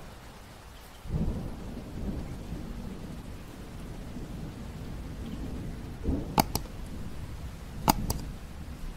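Bamboo reed pen (qalam) scratching across paper as ink strokes are drawn, a steady rasping noise that starts about a second in. Two pairs of sharp clicks come about six and eight seconds in.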